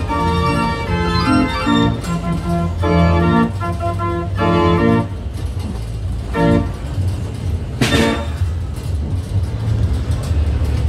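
Organ music on a carousel, playing held chords that stop about five seconds in, with one more short chord a little later. A steady low rumble runs underneath, and a short hiss comes about eight seconds in.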